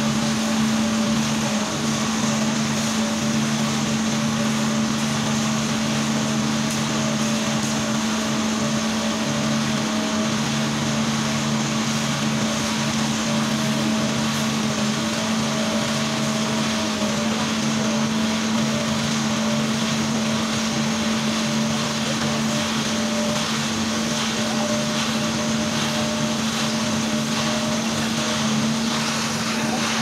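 Self-loading concrete mixer's engine running at a steady, constant drone while its drum turns and discharges concrete down the chute.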